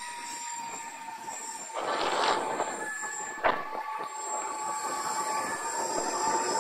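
Electric skateboard riding: the motors whine steadily at a high pitch over the rumble of the wheels on the road. A rush of noise swells and fades about two seconds in, and there is a sharp click about three and a half seconds in.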